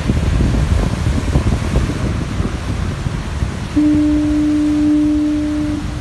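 Lighthouse foghorn sounding one steady low blast of about two seconds, beginning a little past halfway, over the constant rush of heavy surf breaking on the rocks.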